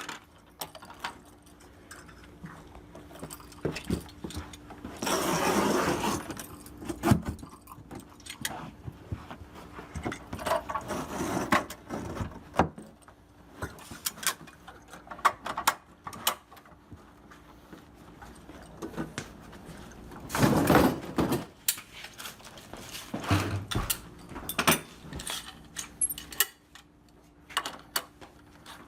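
Carpet installation work: scattered clicks and knocks from tools, broken by about four longer scraping, rustling passes of carpet being worked, the loudest a little after the start.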